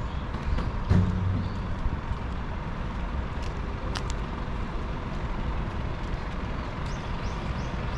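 Street ambience dominated by a steady rumble of road traffic, with a brief low hum and thump about a second in and a few short, high chirps near the end.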